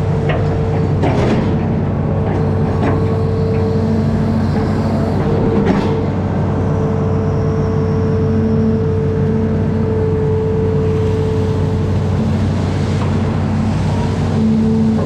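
Amphibious excavator's diesel engine running steadily at a constant pitch, with a few short knocks.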